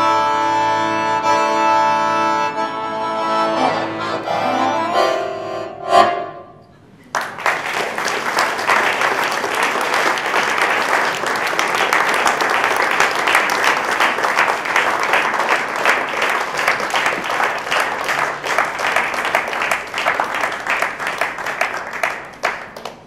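Piano accordion playing held chords, ending on a short accented final chord about six seconds in. After a brief pause, audience applause follows for about fifteen seconds, dying away near the end.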